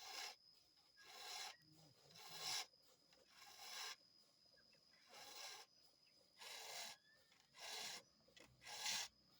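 Chainsaw chain being sharpened with a file: about eight rasping strokes, roughly one a second, each short with a brief pause before the next.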